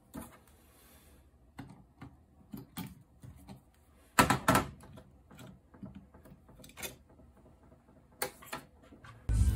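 Scattered clicks and knocks of metal tools and a metal jig being handled on a metal workbench, the loudest cluster about four seconds in. Music starts just before the end.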